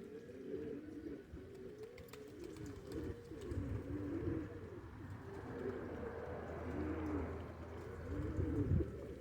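Several domestic pouter pigeons cooing in overlapping, repeated low rising-and-falling coos.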